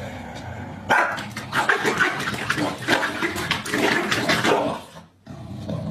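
Two corgis squabbling, barking and snarling at each other in rapid, overlapping bursts that start about a second in and die down near the end.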